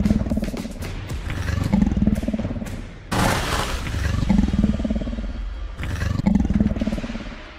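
Battery-operated walking toy T-rex: its motor and gears run in a pulsing cycle about every two seconds as it steps forward, with a loud, harsh electronic roar about three seconds in.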